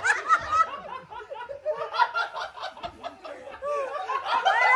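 Several people laughing and chuckling, their voices overlapping in short bursts.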